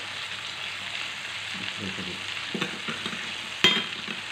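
Lamb shoulder steaks sizzling steadily as they fry in a pan, with a single sharp click near the end.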